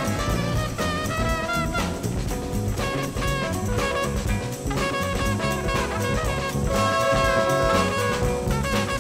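Background jazz music with horns and drums, at a steady beat.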